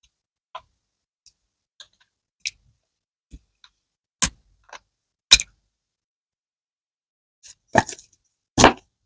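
Slime being played with: a dozen or so short, sticky clicks and pops with silence between them. They start faint and sparse, two sharper pops come about four and five seconds in, and a louder cluster of squishy pops follows near the end.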